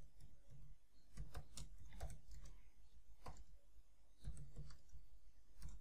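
Faint, irregular keystrokes on a computer keyboard as someone types, a few soft clicks and taps a second.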